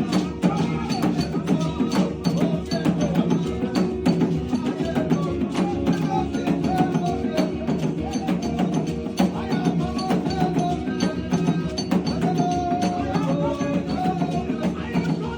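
Worship music with a busy, fast percussion beat and a wavering melody line over a full low accompaniment.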